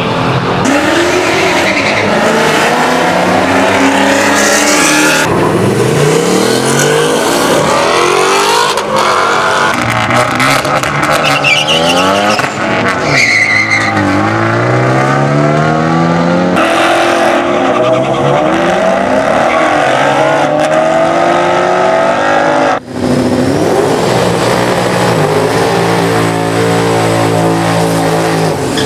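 Several short takes of drag-racing car engines revving and accelerating hard, each rising and falling in pitch, cut abruptly one into the next, with tyre squeal. Near the end an engine holds steady high revs as a car does a burnout.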